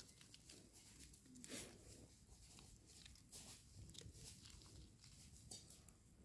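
Near silence with faint, scattered rustles and small clicks: wild mushrooms being handled and their stems trimmed with a knife over dry leaf litter.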